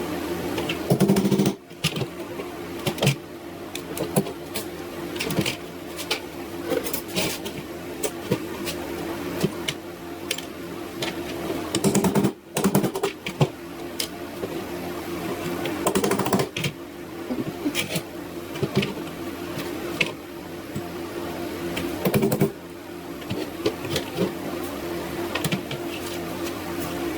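A small motor hums steadily under irregular clicks and taps of small parts being handled. The sound cuts off abruptly twice, about a second and a half in and near the middle.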